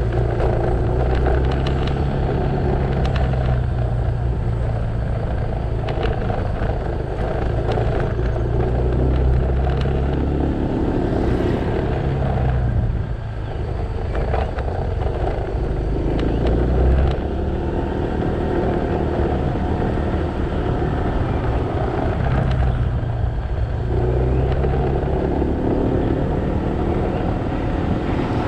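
Motorcycle engine running under way, heard from the rider's seat, its note shifting several times with throttle and gear changes, over steady road and wind noise.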